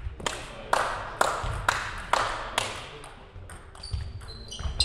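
Table tennis rally: the celluloid ball clicking off bats and table about twice a second, each click ringing briefly in the hall. The hits thin out after about two and a half seconds, and short high shoe squeaks on the sports floor come near the end.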